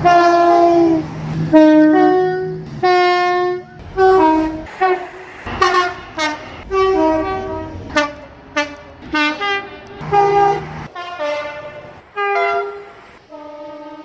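A rapid run of two-tone train horn blasts from several British trains, alternating low and high notes; the first few blasts are held for about a second, and most of the rest are short toots.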